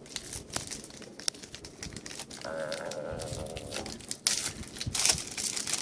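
Hockey card pack wrapper being torn open and crinkled, a run of small crackles with the loudest tearing bursts about four and five seconds in.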